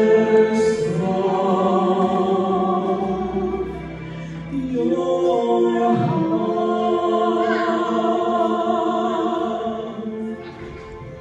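A man and a woman singing a duet into handheld microphones, holding long notes. There is a short dip about four seconds in, and the final note fades out about ten seconds in.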